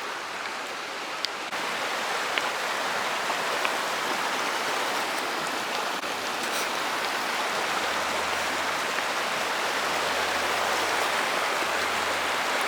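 Shallow creek water running over rock slabs: a steady rushing, a little louder after about a second and a half.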